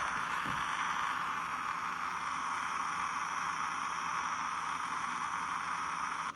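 Steady hiss with a few faint, thin high tones in it, unchanging throughout.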